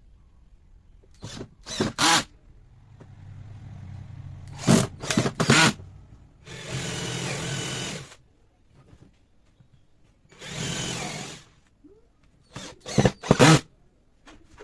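Power tool on wood running in short bursts of one to two seconds, with several sharp, quick knocks and whirs between them.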